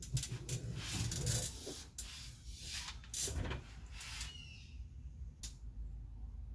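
Rustling and rubbing of gloved hands handling and working electrical wires for ceiling lights: a run of short scraping, rustling strokes for the first few seconds, then quieter with a sharp click a little before the end.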